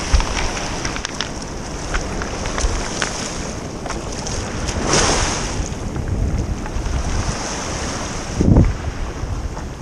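Wind buffeting a GoPro's microphone over small waves washing and rattling across a pebble beach. A louder surge of surf comes about five seconds in, and a low gust thumps the microphone near the end.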